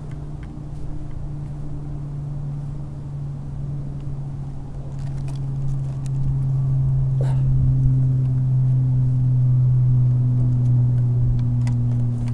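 A steady low engine drone, an engine running at an even speed, growing louder about six seconds in, with a brief falling whine near the middle and faint clicks of rope and climbing gear.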